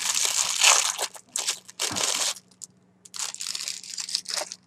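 Plastic being handled and crinkled, an irregular crunching rustle in two spells with a gap of about a second between them.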